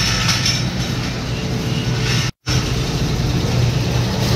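Suzuki Mehran's 800cc three-cylinder engine running at low speed, a steady low hum, as the car pulls slowly onto a wheel-alignment pit. The sound cuts out briefly about two seconds in.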